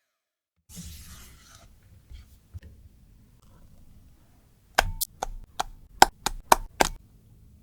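A short rustle, then a quick run of about eight sharp taps with a slight ring, about four a second, from baking utensils knocked against a mixing bowl while making cake batter.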